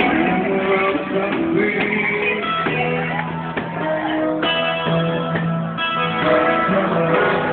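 Small live band playing: electric guitar playing melodic lines of held notes over a second guitar, with a cajón keeping the beat.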